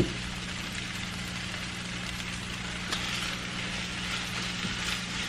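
Eggs and turkey frying in a pan, a steady sizzle over a low, even hum, with a click right at the start.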